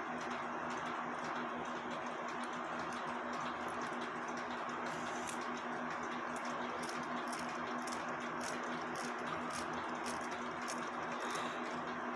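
Cuckoo clock movement ticking, about two ticks a second, starting about halfway through, over a steady low hum.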